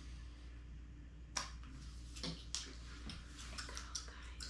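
Faint, irregular clicks and light rustles of objects being handled, over a low steady hum.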